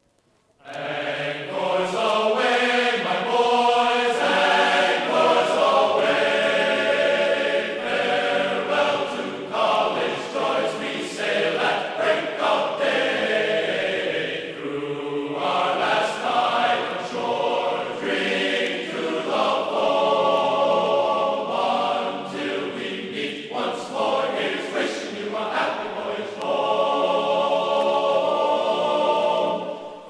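Choral music, voices singing held chords, starting about a second in after a brief silence.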